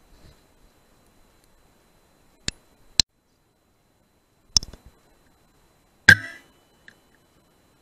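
Sharp clicks and cracks from a BSA R10 .177 PCP air rifle in use. There are four short sharp sounds: two about half a second apart, then two more, and the last, about six seconds in, is the loudest, with a brief ring after it.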